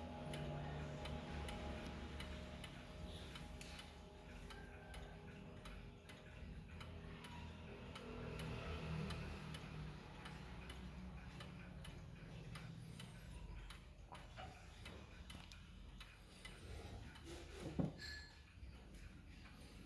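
Vedette mechanical chiming clock ticking steadily and faintly. The last ring of its gong chime dies away in the first second, and there is a single sharp knock near the end.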